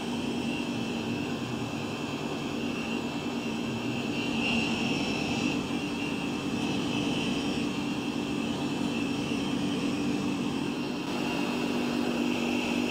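Washing-machine electric motor running steadily: an even low hum with a higher whine over it.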